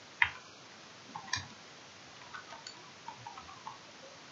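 Typing on a computer keyboard: an irregular run of light key clicks, single and in quick little clusters.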